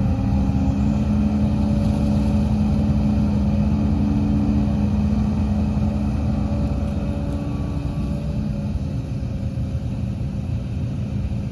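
Heavy diesel engine of earthmoving machinery running steadily, a low rumble with a steady hum, easing slightly in the second half.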